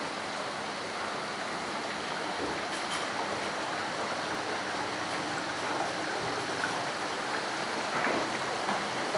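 Water falling in sheets down the glass panels of an indoor water wall and splashing into the base, a steady rushing noise.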